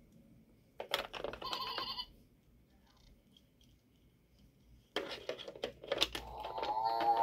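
Hard plastic toy animal figures clicking against a toy tractor's plastic trailer as they are set in, with two bursts of the toy's electronic sounds: a short run of beeping tones about a second in, and a wavering animal-like call that swells near the end.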